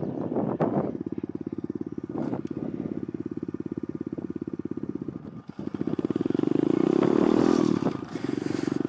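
Pit bike engine idling with an even pulse, with a couple of short knocks in the first two seconds. About six seconds in, the engine revs up and runs louder.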